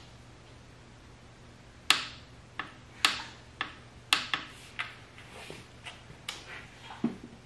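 Ratchet of a hand torque wrench clicking on the exhaust camshaft gear bolt of a 1.8T 20-valve engine as the bolt is tightened to its 48 foot-pound spec: a string of sharp, irregular clicks, about one to two a second, starting about two seconds in and ending near the end.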